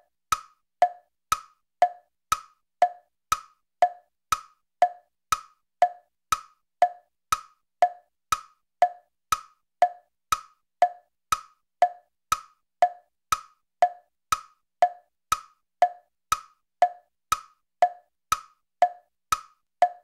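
Wood-block tick-tock: sharp hollow knocks about two a second, alternating between a higher and a lower pitch in a steady, even rhythm.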